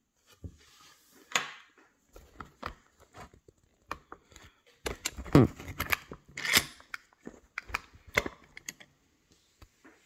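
Light clicks and taps of steel tweezers handling small brass lock pins and springs in a plastic pin tray, followed midway by louder knocks and rubbing as the camera is picked up and moved close.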